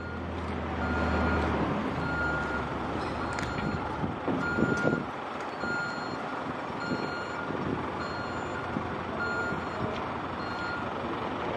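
Reversing alarm on a telehandler beeping steadily, about once a second, over the rumble of the machine's engine, with a couple of knocks along the way.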